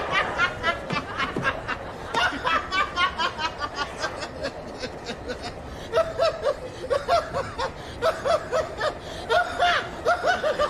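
Laughter: snickering and chuckling in quick repeated bursts, with a lower voice laughing from about halfway through.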